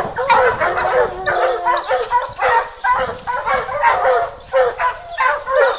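Several Plott hounds barking treed, overlapping barks and yelps several times a second without a break: the hounds are holding a bear up a tree.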